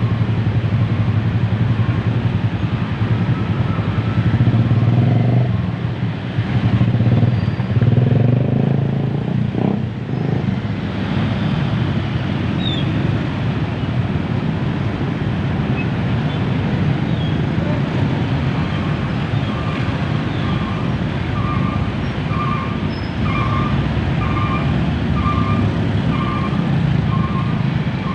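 Dense, slow-moving road traffic: cars, motorcycles and trucks running in a steady low rumble of engines, swelling briefly now and then. In the last third a beep repeats about once every three-quarters of a second, eight or nine times.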